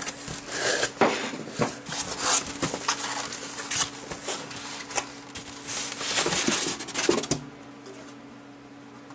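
Cardboard shipping carton being opened by hand: flaps scraping and rustling, then a white polystyrene foam packing tray rubbing and knocking against the cardboard as it is lifted out. The handling noise stops about seven seconds in, leaving a faint steady hum.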